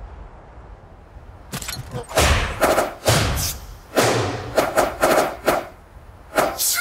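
Instrumental beat music starting about a second and a half in, with heavy bass thumps about once a second and sharp percussive hits between them, after a faint low rumble.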